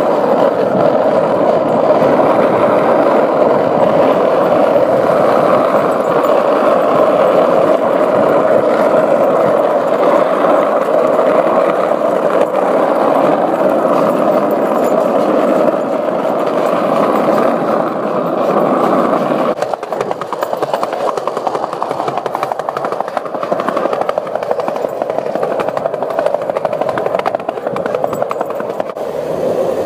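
Skateboard wheels rolling steadily and fast over asphalt. The noise drops to a quieter, rougher level about two-thirds of the way through.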